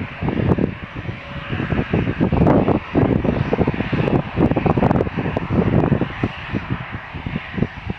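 Airliner engines running, a rough rumble that surges and fluctuates rapidly, with a steady hiss above it.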